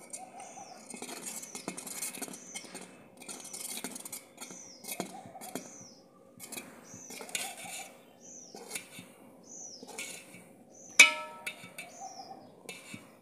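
A steel ladle stirring and scraping through milk and vermicelli in a brass pot, with one sharp metallic clink that rings on briefly about eleven seconds in as the ladle strikes the pot. A bird chirps throughout, short falling calls about once a second.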